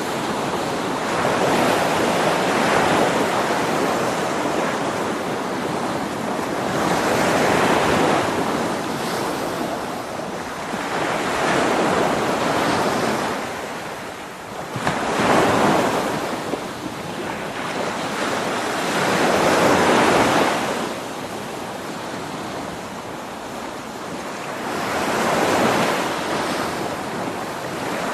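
Sea waves breaking and washing on a shore in slow, repeated swells, each surge rising and falling every few seconds.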